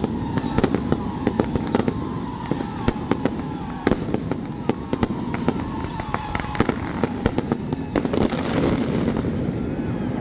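Fireworks display going off: a dense run of sharp cracks and pops, several a second, over a steady rumble.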